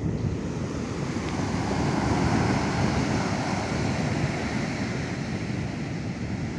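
Ocean surf breaking and washing up a sandy beach: a steady rush of waves that swells a little about two seconds in.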